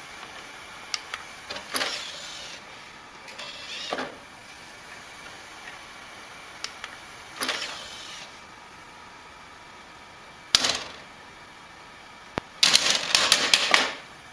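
A desktop computer's optical drive tray working: single clicks and several short mechanical whirs as the tray is pushed and slides, spaced a few seconds apart. Near the end, a loud burst of rapid clicking and rattling against the tower's plastic front.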